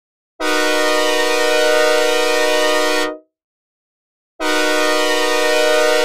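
Synthesized recreation of a Nathan K5LA five-chime train horn, dry with no reverb: a steady chord blown once for about three seconds, then, after a gap of about a second, blown again.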